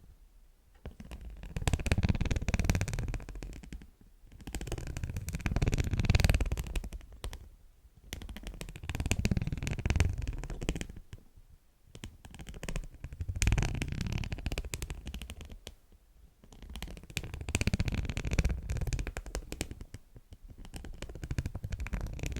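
Beeswax wrap crinkled close to the microphone: dense crackling that swells and fades in waves about every two seconds.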